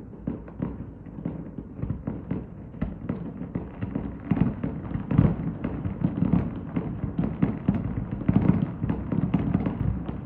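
Fireworks going off in a rapid, irregular stream of bangs and crackles, growing denser and louder after about four seconds.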